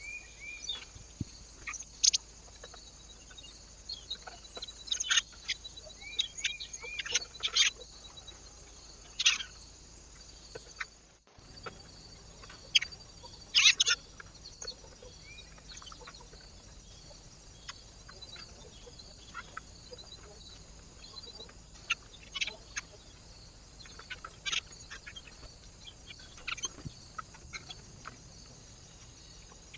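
Birds at a feeder giving scattered short, sharp calls and brief chirps, with a momentary dropout about eleven seconds in where one trail-camera clip cuts to the next.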